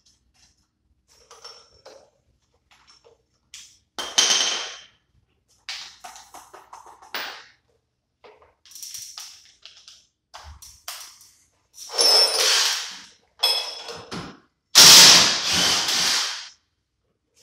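Hand tools and metal hub and brake parts clanking at a car's front wheel hub as it is taken apart: a run of separate clanks and clatters, some with a short metallic ring, the loudest near the end.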